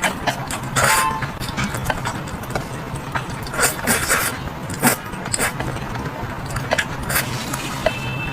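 Eating utensils clinking and scraping against a food tray during fast eating, a string of short irregular clicks and scrapes over a steady low hum.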